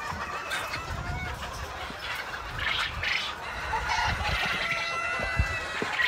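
Penned domestic chickens clucking and calling over one another, with a rooster crowing in one long call in the second half. A single thump comes near the end.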